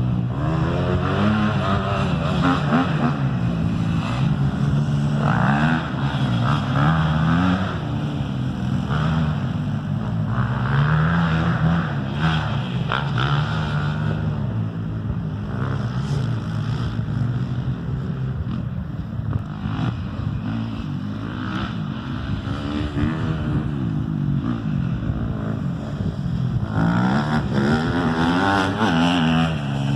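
A 250 cc off-road engine running under riding load, its pitch rising and falling again and again as it revs up and eases off.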